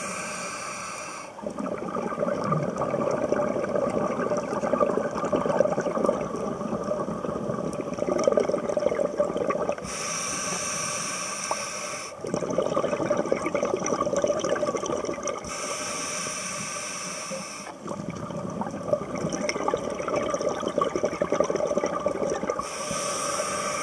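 Scuba diver breathing through a regulator underwater: a steady hiss of about two seconds on each inhale, alternating with longer stretches of crackling exhaust bubbles on each exhale. Inhales come near the start, about ten and sixteen seconds in, and near the end.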